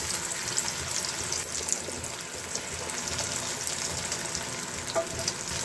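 Beaten egg frying in hot oil in a pan: a steady sizzle with fine crackling.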